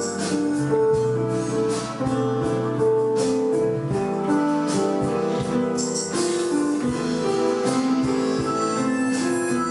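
Keyboard music from a Roland keyboard: a slow melody of held notes over sustained chords, with light cymbal-like percussion.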